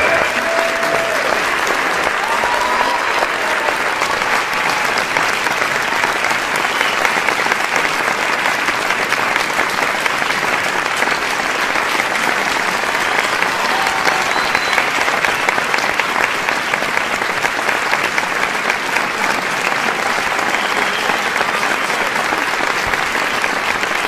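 A large crowd applauding steadily, with dense clapping and scattered shouts and cheers mixed in.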